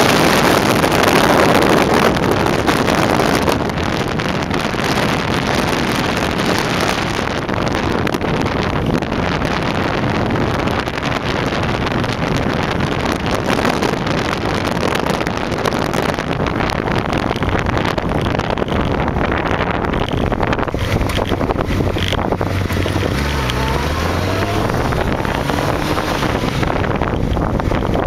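Honda CBR1000F inline-four engine running at cruising speed under heavy wind rush on the microphone, a little louder for the first few seconds. About three-quarters of the way through, the engine note drops and then rises again as the revs change.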